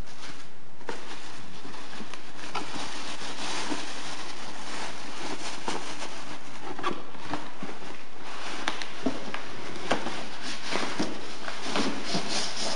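Plastic packaging and bubble wrap rustling and crinkling while cardboard box flaps and foam packing are handled during unboxing, with scattered small knocks and clicks that come thicker near the end.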